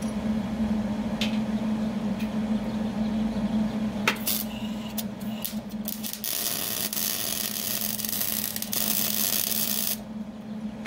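Wire-feed welder arcing on steel rail: a few short crackling tacks about four seconds in, then a continuous crackling hiss of a weld bead for about four seconds that cuts off near the end. A steady low hum runs underneath throughout.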